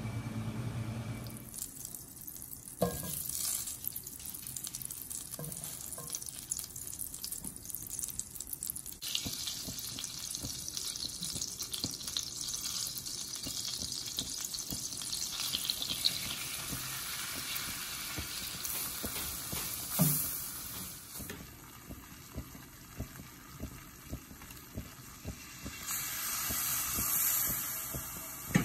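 Melted butter sizzling and bubbling in a steel pan for a béchamel roux, with a few sharp clinks of a utensil or bowl against the pan.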